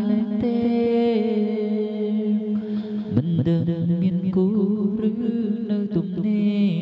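Music with a voice singing long held notes that change pitch a few times.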